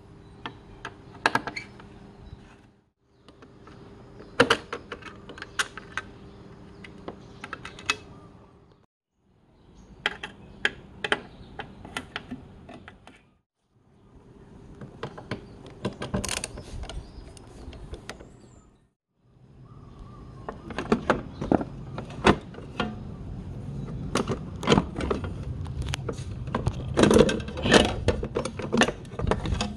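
Clicks, taps and rattles of hand tools and parts being handled while working on a motorcycle's plastic fairing and handlebar controls. The sound comes in several short stretches broken by brief silences, with a faint steady hum in some of them. The last stretch, from about two-thirds of the way in, is the loudest and busiest.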